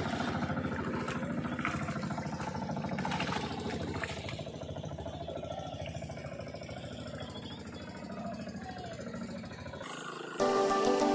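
Small boat engine running with a steady, rapid chugging. It cuts out shortly before the end, and music with a rain-like patter takes over.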